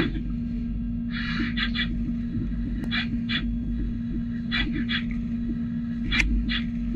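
Brother Speedio U500Xd2-5AX machining center drilling aluminium with a 6.8 mm drill at 5,600 rpm under flood coolant. A steady machine hum runs under short bursts of cutting noise that come in clusters of two or three, about every one and a half seconds.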